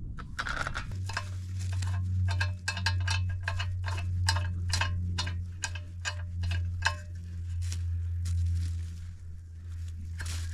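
Quick metallic clinks, about three a second for several seconds, each with a brief ringing tone, like a metal utensil striking a metal pot. Under them runs a steady low hum.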